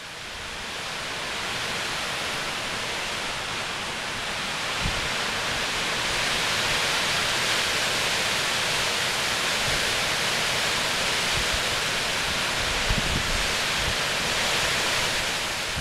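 Strong storm wind of about 45 km/h driving snow across open ground: a steady, heavy hiss that fades in over the first couple of seconds. A few low buffets of wind strike the microphone, about five seconds in and again near the end.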